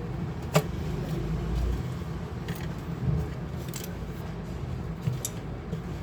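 A few short, sharp clicks, the first the loudest, over a steady low rumble.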